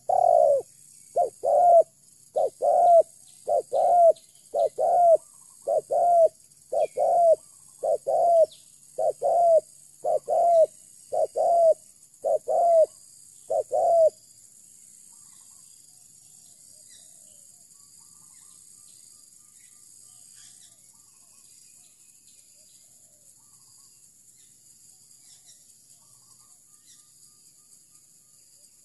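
Spotted dove cooing close by: a run of about a dozen loud coos, roughly one a second, that stops about halfway through. Underneath is a faint, steady, high-pitched drone.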